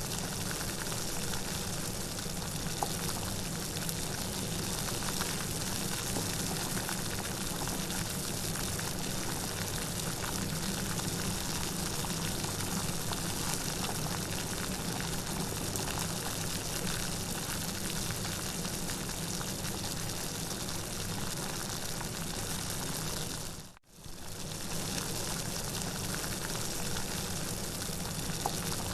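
Steady rain falling, a dense even hiss of water. About 24 seconds in it cuts out for a split second and starts again.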